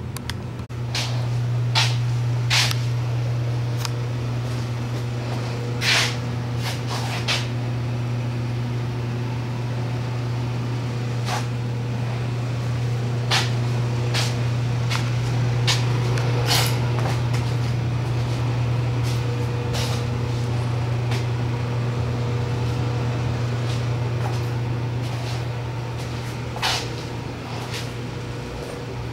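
A machine running with a steady low hum that starts about a second in, with scattered sharp clicks and knocks over it.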